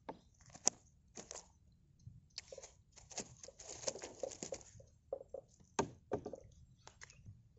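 A string of irregular clicks, knocks and rustles, about a dozen in all, with a busier rustling stretch about three to four and a half seconds in: handling noise.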